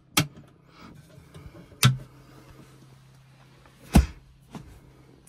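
Small wooden cabinet doors being swung shut by hand, with three sharp knocks about two seconds apart and a lighter tap near the end. A low steady hum runs underneath.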